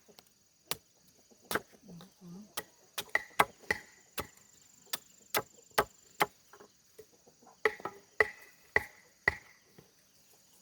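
A blade chopping bamboo: a run of sharp, irregularly spaced strikes, about one or two a second, several ringing briefly.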